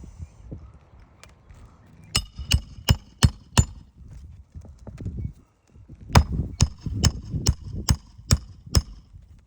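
Footsteps on an asphalt shingle roof: two runs of sharp, crunching steps, about five and then about seven, in quick even rhythm.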